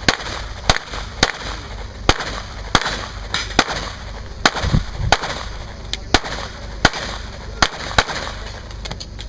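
9mm CZ 75 SP-01 Shadow pistol fired in a string of about fifteen single shots, spaced about half a second to a second apart.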